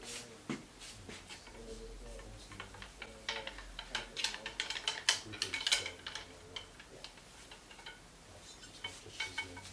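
Cleaning rod with a cloth patch on its jag being pushed and twisted through the bore of a 20-bore Beretta Silver Pigeon over-and-under shotgun: a run of small clicks and scrapes as rod and barrel knock and rub, busiest in the middle, wiping dirty oil and solvent out of the barrel.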